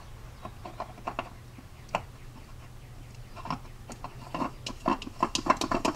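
Light, irregular clicks and taps as a new oil filter is pushed onto the Jeep 4.0L's oil filter adapter and spun on by hand. The clicks come more often in the last couple of seconds.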